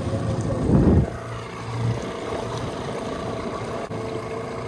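Small boat's outboard motor running steadily under way, with a short loud low burst just before a second in.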